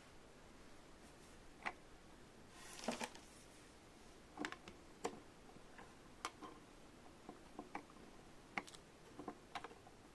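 Small plastic toy pieces of a Sylvanian Families refrigerator set clicking and tapping as they are handled, in irregular sharp clicks, with a brief rustle about three seconds in.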